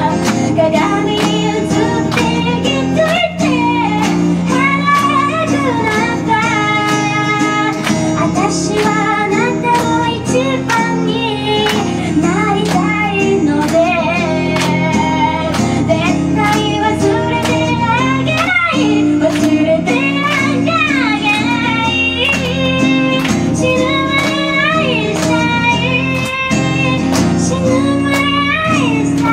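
A woman singing a song live into a microphone while strumming a steady rhythm on an acoustic guitar.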